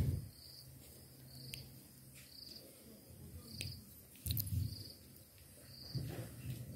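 An insect chirping steadily in the background, one short high trill about once a second. Low, dull bumps and rustles of baby monkeys clambering against the camera come through a few times, the loudest about four seconds in.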